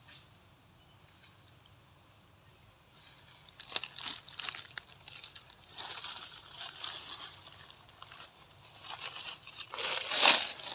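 Quiet at first, then from about three seconds in, irregular crackling and rustling close to the microphone, in uneven bursts that are loudest near the end.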